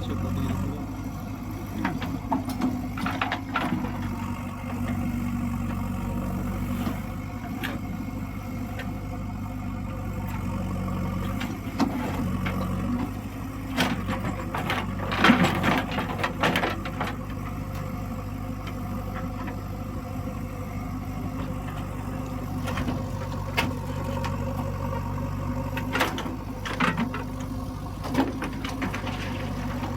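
Backhoe loader's engine running steadily, with scattered clanks and rattles over it, the loudest cluster about fifteen seconds in.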